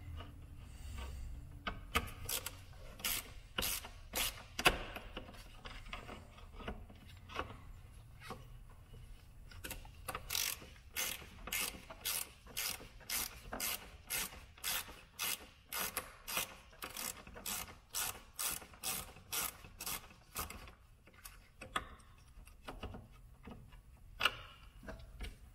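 Ratchet wrench clicking as it backs out a small bolt: scattered clicks at first, then a steady run of strokes at about two a second, then a few more near the end.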